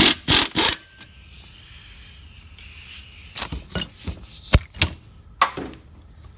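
A power tool run in reverse in three short bursts on a transmission part, followed by scattered metallic clicks and knocks of parts and tools being handled.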